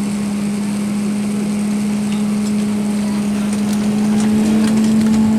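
Cabin noise inside an Airbus A380 during the takeoff climb: steady jet-engine and airflow drone with a strong low hum, and a few faint clicks in the second half.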